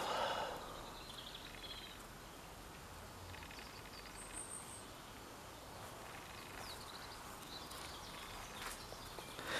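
Faint outdoor ambience with a few faint bird chirps, one short high note about four seconds in.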